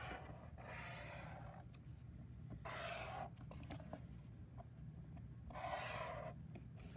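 A marker pen drawing on paper, tracing the edges of a sticky note in three longer strokes with a few short taps and pauses between them, faint.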